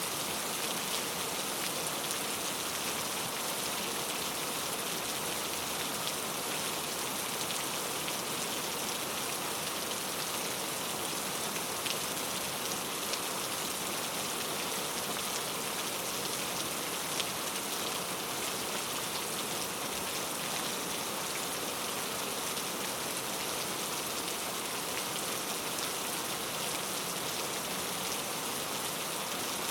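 Steady rain falling in a rainforest, an even hiss of many drops with a few individual drop ticks standing out.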